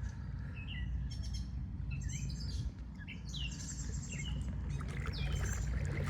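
Small birds calling: a scatter of short, quick chirps, some sliding down in pitch, over a steady low rumble.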